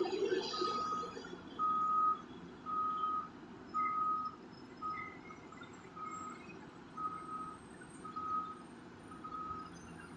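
Reversing alarm on heavy mining equipment beeping about once a second, one steady tone per beep, growing fainter after the first few beeps, over a low engine rumble.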